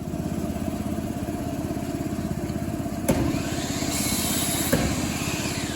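An engine starting and then running with a fast, even beat. Sharp knocks sound about three seconds in and again near the end.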